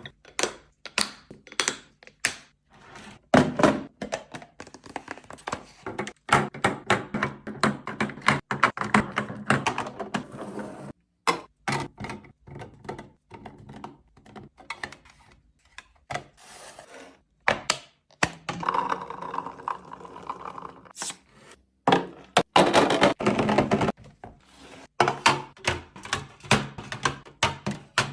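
Food containers and packaging being handled and set down while restocking a fridge: a quick run of knocks, clicks and thunks, with stretches of rustling and clattering.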